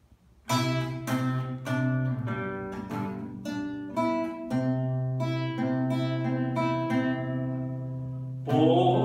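Nylon-string classical guitar playing the introduction to a bolero: plucked notes and chords struck about every half second at first, then held chords. A man's voice begins to sing near the end.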